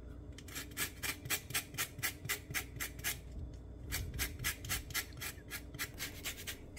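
Orange peel being zested on a small handheld metal grater: quick, regular scraping strokes, several a second, with a short pause just past the middle.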